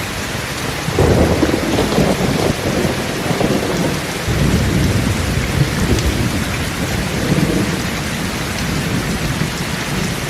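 Steady rain with thunder: a low rumble breaks in suddenly about a second in and rolls on in swells for several seconds before fading back under the rain.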